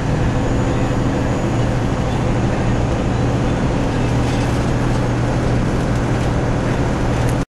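Semi truck's diesel engine and road noise heard from inside the cab while cruising at highway speed, a steady low drone. It cuts off suddenly near the end.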